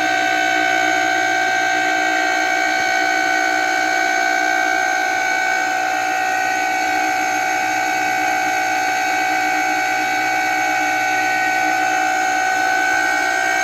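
Kawamoto N3-206SH well pump's rusted electric motor running with a loud, steady screeching whine made of several held tones: the severe abnormal motor noise of a faulty, junk-condition pump.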